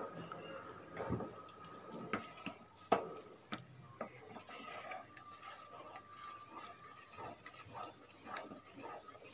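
A utensil stirring thick gram-flour and ghee batter in a kadai: soft scraping and rubbing, with a few light clicks of the utensil against the pan.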